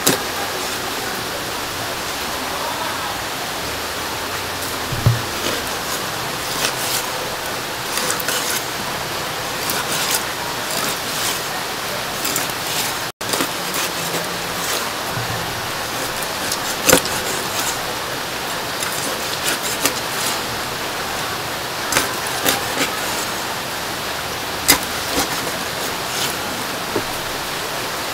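Cleaver knocking now and then on a wooden chopping block while slicing raw fish into thin slices, over a steady rush of running water.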